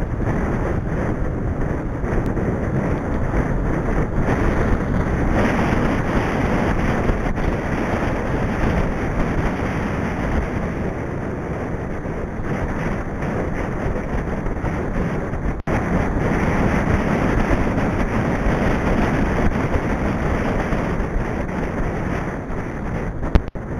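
Wind rushing over the microphone of a camera on a moving mountain bike, mixed with tyre and road noise from the tarmac lane. The sound cuts out for an instant twice, about two-thirds of the way through and near the end.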